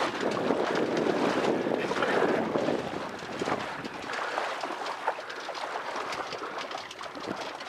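Water sloshing and splashing around a person wading waist-deep while towing a sailboat by rope, with wind on the microphone. It drops away after about three seconds, leaving quieter wind and light splashing.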